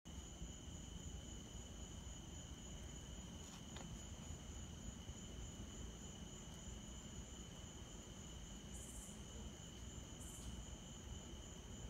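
Faint, steady trilling of crickets at two high pitches, over a low background rumble.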